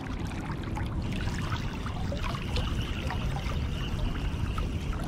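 Flowing river water trickling and rippling steadily, with a low rumble underneath and a few small clicks.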